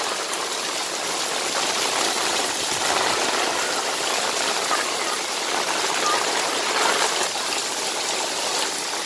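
Heavy rain pouring onto a paved alley and shallow floodwater running over it: a steady, loud hiss of falling and flowing water.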